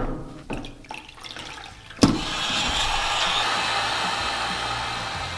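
Wagner heat gun switched on with a click about two seconds in, then blowing steadily as it heats a PVC pipe to soften it for bending. Before that come a few light knocks.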